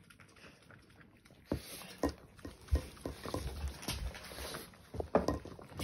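Dog licking whipped cream off a spoon: a run of irregular short smacks and licks starting about a second and a half in.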